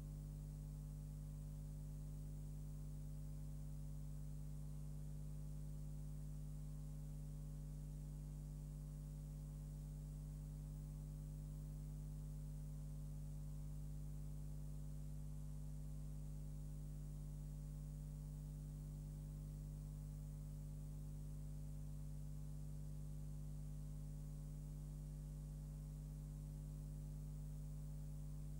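Steady low electrical hum with a faint hiss behind it, unchanging, with no other sound.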